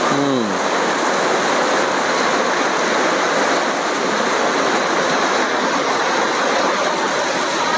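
A steady, loud rushing noise with no rhythm or change in level.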